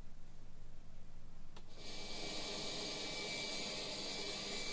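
Unitra Diora Śnieżnik R 502 radio just switched on: faint hum at first, then a small click about a second and a half in, after which its speaker gives a steady hiss of untuned FM noise with a thin high whistle.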